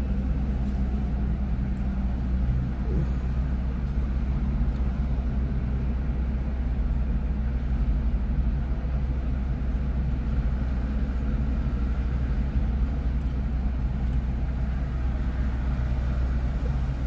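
Steady freeway traffic noise: an even, continuous rumble of passing vehicles with a low hum underneath.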